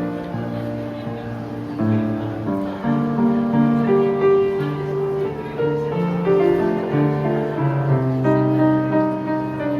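Solo piano playing a melody over held chords, the notes and chords changing about every half second to a second.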